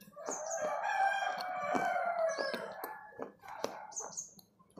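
A rooster crowing once, a long call of about two and a half seconds that sinks slightly in pitch toward its end. Sharp close-up mouth clicks from chewing run under it, with a few short high chirps.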